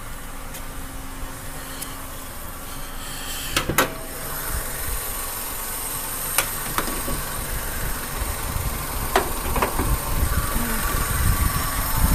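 Car engine idling, growing louder as the hood comes up, with a car door shutting about three and a half seconds in and a few sharp clicks later as the hood is released and raised.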